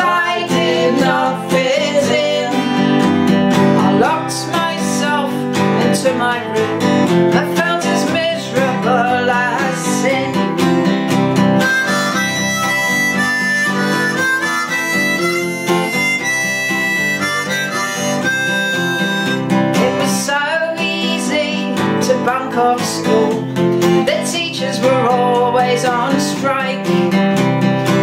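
Strummed acoustic guitar accompanying a woman singing a blues song. About twelve seconds in she breaks off for a harmonica solo of several seconds, played with held notes, then goes back to singing over the guitar.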